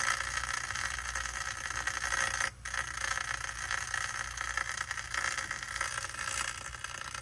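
Steady hiss and mains hum from a cleaned, mold-damaged VHS tape's audio track playing back with no program sound, cutting out briefly about two and a half seconds in.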